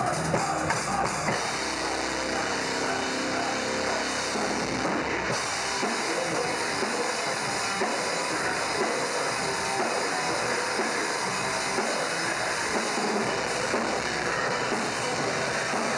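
Live death metal band playing, heard from the drummer's position, so the drum kit is to the fore: dense, continuous drumming and cymbals under the band, loud and unbroken.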